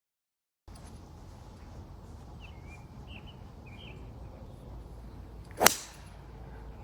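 A golf club striking a ball: one sharp, loud crack about five and a half seconds in, over steady wind noise, with a few short bird chirps before it.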